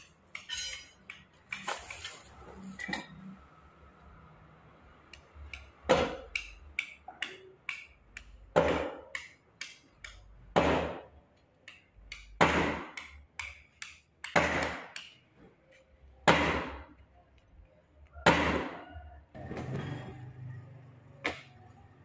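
Steel chain of a manual chain hoist clinking and rattling as it is hauled, then a run of heavy knocks, one about every two seconds, with lighter clicks between them.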